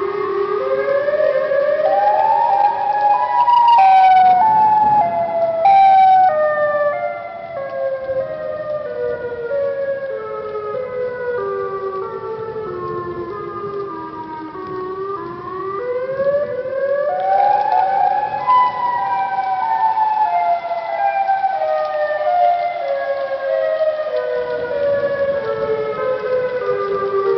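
Siren sound effect wailing. Its pitch climbs in short steps, then falls step by step over about ten seconds, and the cycle repeats once.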